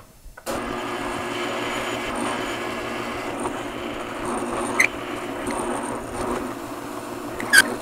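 Drill press starting about half a second in and boring a large hole into a block of hardwood with a Forstner bit: a steady motor hum under the cutting noise of the bit. Two brief sharp sounds cut through, about five seconds in and again near the end.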